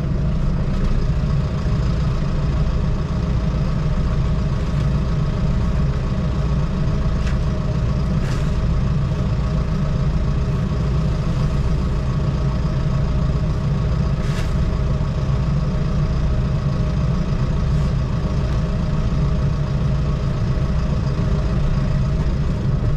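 Fendt 412 Vario tractor's diesel engine idling steadily, heard from inside the cab, with a couple of faint clicks.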